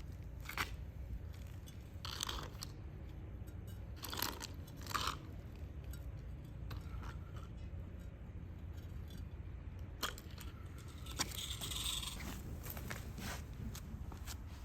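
Scattered clicks, knocks and scraping of hands handling tools and materials, over a steady low rumble, with a sharp click about ten seconds in and a longer scrape and rustle a second or so later.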